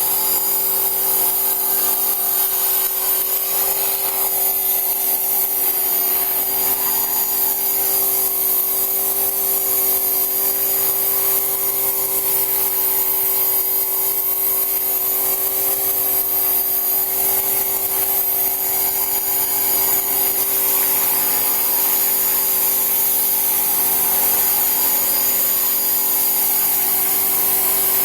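Rebuilt radio-controlled aircraft's motor running steadily in flight, a constant, even drone with a high whine over it.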